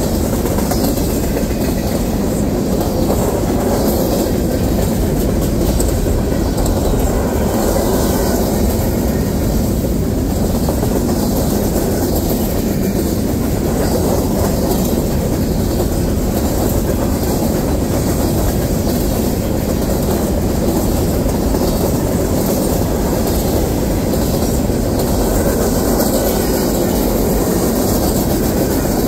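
Freight train cars, covered hoppers and boxcars, rolling past at trackside, their steel wheels running steadily on the rails.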